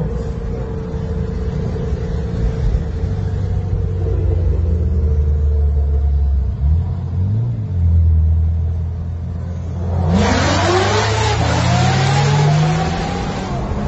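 Cars running at highway speed: a steady low engine drone, then about ten seconds in a loud rasp of sports-car engines revving hard, rising and falling several times.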